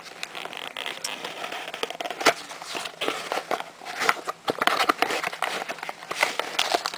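Small cardboard cereal sample box being opened by hand: the top flap pulled open, with irregular crackling, scraping and sharp clicks of cardboard and paper being handled.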